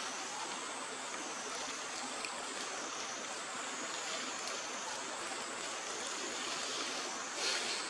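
Steady outdoor rushing noise, like running water or wind through trees, with a continuous high whine above it that swells and dips every second or two. A brief, sharper, louder sound comes near the end.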